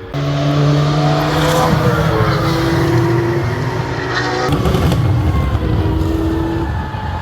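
GT3 race car engine running hard at high revs, with a sudden change in the engine note about four and a half seconds in.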